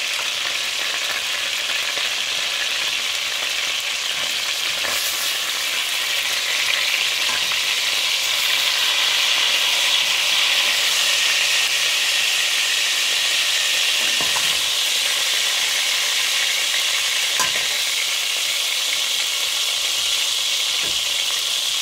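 Skinless chicken thighs and drumsticks sizzling in hot canola oil in a stainless steel pan: a steady frying hiss, with a few light clicks scattered through it.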